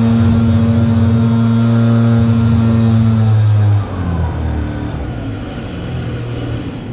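Compact tractor's diesel engine running steadily at a high, even speed. A little under four seconds in its pitch slides down and it drops sharply in level, then runs on rougher and lower, fading toward the end.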